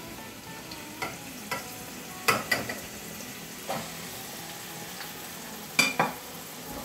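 Ground beef frying in hot oil with onion and garlic in a stainless steel pot: a steady sizzle, broken by several sharp clicks and knocks of a plate and utensil against the pot as the meat is scraped in and stirred.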